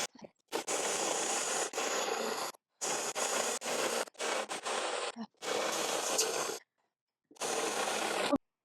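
A 1.5-inch drill bit boring through a wooden board, a harsh cutting noise heard in about six short spells of one to two seconds, each stopping abruptly.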